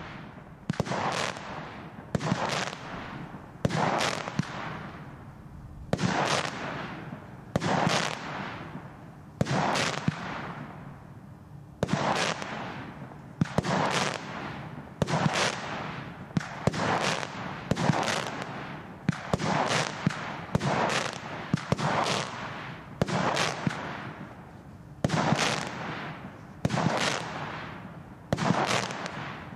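A 'Scooter' 30-shot fireworks battery firing its shots in sequence, about one a second with two short pauses. Each shot is a sharp bang trailing off into a brief fading hiss.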